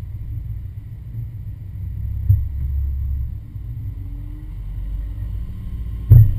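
Low, steady rumble of a vehicle engine idling, with a short knock about two seconds in and a loud thump near the end.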